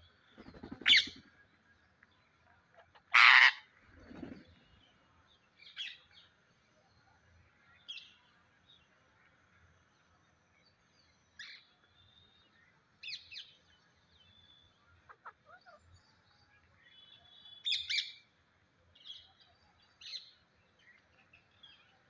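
Rose-ringed parakeets calling: short, scattered calls, the two loudest about one and three seconds in, then single calls every second or two.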